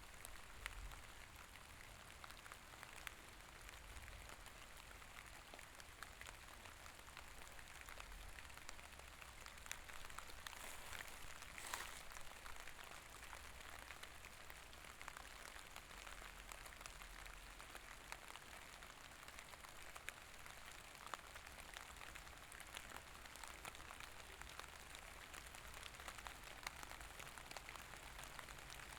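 Soft, steady rain: a faint even hiss with many small drops ticking through it, one slightly louder spell about halfway.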